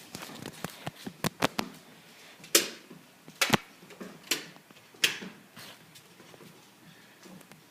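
A string of irregular sharp knocks and taps, about a dozen within five seconds, the loudest few near the middle.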